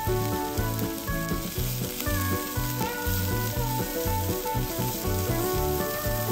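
Food sizzling as it fries in vegetable oil in a pan, with background music carrying a steady bass beat over it.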